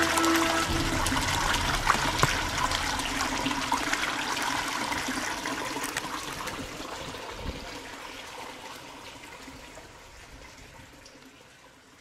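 Water running from a bamboo spout into a stone basin and spilling over its lip onto rocks: a steady splash and trickle that fades gradually away.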